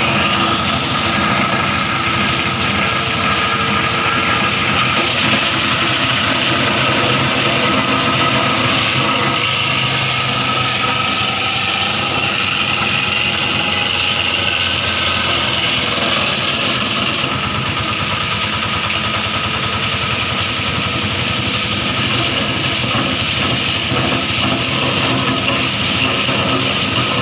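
Diesel-driven wood crusher machine (24 hp diesel engine) running steadily, with a constant high whine over the engine noise.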